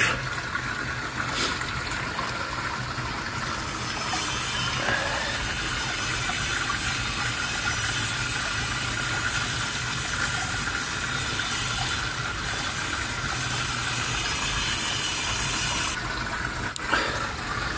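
Steady rush of water moving through a koi pond's pumped filter system, over a low steady hum.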